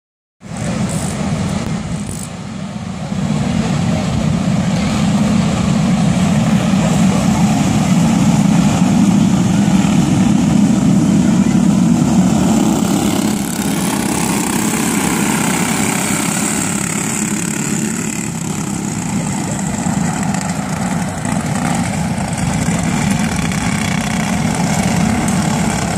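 A pack of dirt-track racing karts with Briggs & Stratton Animal single-cylinder four-stroke engines running together in a steady drone, getting louder about three seconds in as the field comes round.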